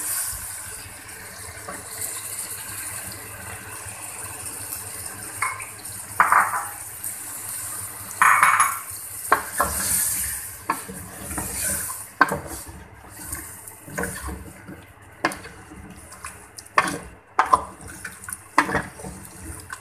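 Chicken and potatoes frying in a metal pot with a steady hiss as a wooden spoon and metal tongs stir and scrape through them. From about halfway the utensils knock against the pot in a run of sharp clicks.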